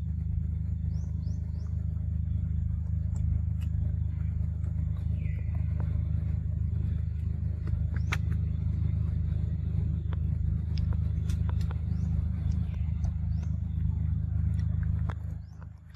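A steady low rumble with a droning hum, with faint bird chirps and scattered small clicks over it; the rumble cuts off suddenly near the end.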